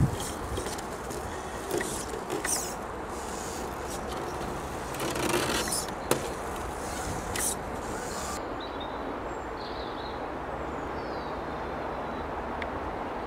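Small brushed electric motor and geared drivetrain of an Axial Honcho 1/10-scale RC crawler running slowly. Its tyres scrape and knock over dirt, roots and wood several times in the first half, then it settles into a steadier, duller running sound.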